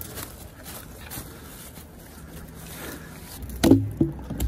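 Footsteps crunching through dry leaf litter, with faint crackles and ticks. About three and a half seconds in come a few loud knocks and thumps, the loudest sound here.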